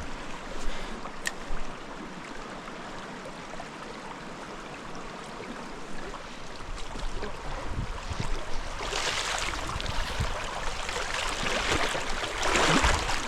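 Mountain stream water running steadily. Two louder bursts of rustling noise come about nine seconds and twelve seconds in, with a few soft knocks and thumps in between.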